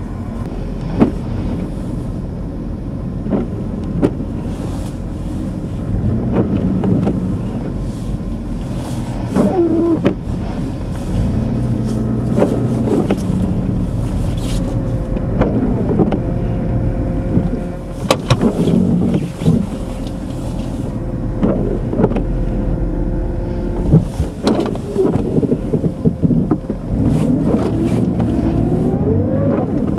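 Vehicle driving through deep snow: a steady low rumble of engine and tyres, broken by several sharp knocks and a few short rising squeals.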